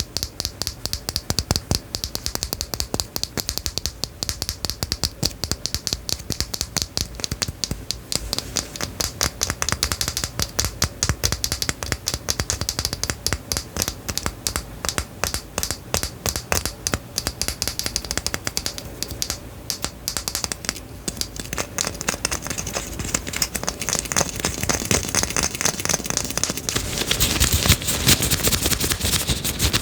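Rapid, dense clicking and tapping, many small clicks a second, growing busier and louder near the end.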